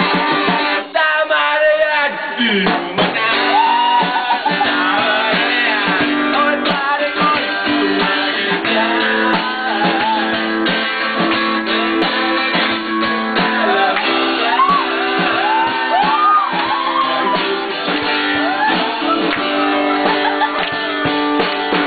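A man sings loudly into a microphone while strumming an acoustic guitar, backed by a drum kit, in a live amateur jam. The music runs without a break until it cuts off at the very end.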